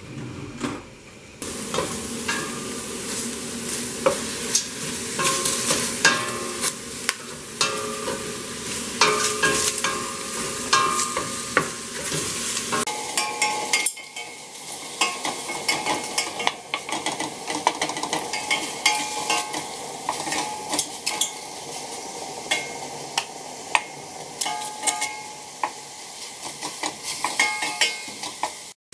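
Cubes of stew meat sizzling as they brown in hot oil in a stainless steel pot, with a wooden spoon scraping and knocking against the pot as the meat is stirred. The sizzle is steady, with frequent sharp clicks from the spoon.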